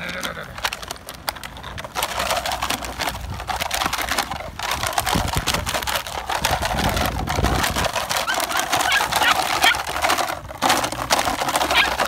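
Plastic bag crinkling and rustling as it is waved and shaken for Malinois puppies to chase and bite, with a few short high puppy yips near the end.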